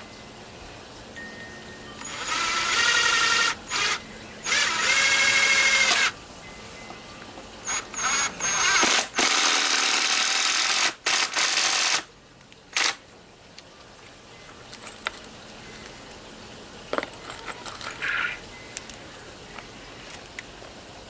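Power drill driving screws, likely fastening a new board to the garden bed frame, in several whirring bursts of one to two seconds each. Short blips fall between the bursts, and the drilling stops about twelve seconds in, leaving only a few faint short whirs.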